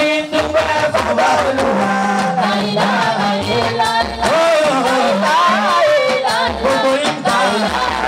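A man singing an Islamic devotional song into a microphone through a PA system, over an amplified band with drums and a steady bass line.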